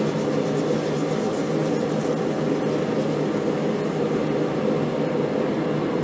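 Red-hot copper plate quenched in a bucket of water to anneal it, the water hissing and bubbling around the tongs, over a steady machine hum with a low drone.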